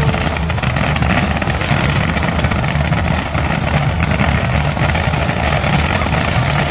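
A consumer firework burning steadily, giving off a continuous dense crackling rush with a heavy low rumble underneath.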